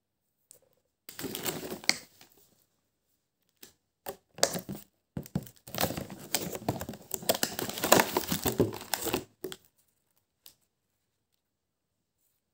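Clear plastic cupcake container crinkling and crackling as it is handled and opened. There is a short burst about a second in, a few small clicks, then a longer stretch of crinkling that stops a little before ten seconds in.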